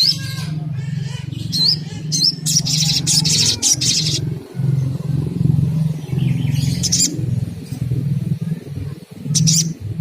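Sunbird (sogon) calling: short high, thin chirps, then a fast trill of bright notes lasting about a second a few seconds in, with more brief calls later and near the end. A steady low hum runs underneath.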